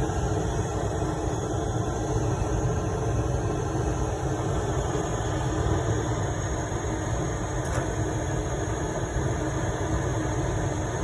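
Homemade gasifying waste oil burner running, its 240 V boiler fan forcing air into the flame: a steady, even rushing noise heavy in the low end.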